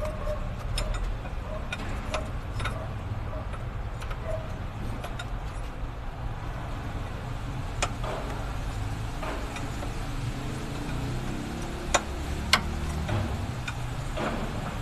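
Hand tools and metal fittings clicking and clinking as a mechanic works on a truck's steering pump lines, with two sharper clinks about twelve seconds in. A steady low rumble runs underneath.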